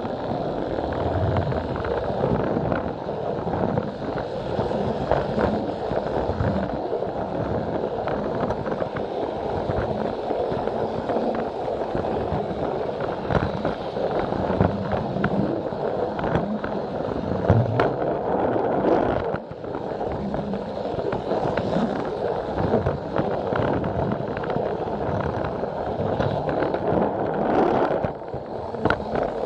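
Plarail plastic toy train running along its plastic track, a steady rattle of its small battery motor and gears with the wheels clicking irregularly over the rail joints. The running noise drops briefly twice, about two-thirds of the way through and near the end.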